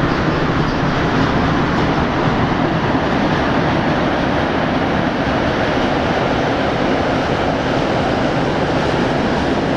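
Three coupled EU07/EP07 electric locomotives running light over a steel railway bridge: a loud, steady rolling noise that neither rises nor falls.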